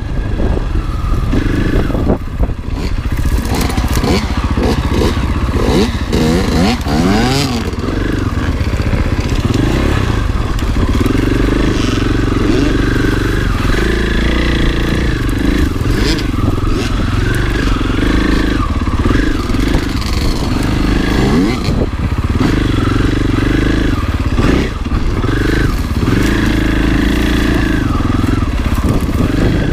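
2020 Husqvarna FE 501 dirt bike's single-cylinder four-stroke engine running under load, its revs rising and falling again and again with the throttle and gear changes.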